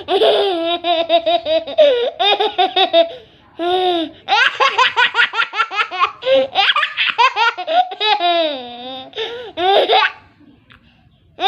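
A young child laughing hard in long runs of quick, high-pitched laugh pulses, with a short break about three seconds in and another near the end.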